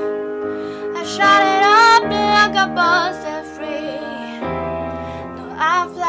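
Female voice singing short, wavering phrases with sliding pitch over a sustained piano accompaniment.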